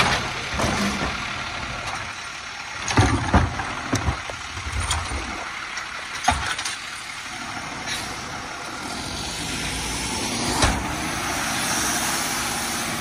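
Automated side-loader garbage truck emptying a compost cart: the lifting arm shakes and bangs the cart against the hopper, with sharp clanks about three seconds in, and sets it down with a knock around six seconds. The truck's diesel engine then pulls away, growing louder near the end.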